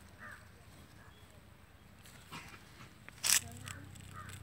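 Outdoor ambience with a few short bird calls early on. About three seconds in comes a brief, sharp noise, the loudest sound, followed by a low steady hum.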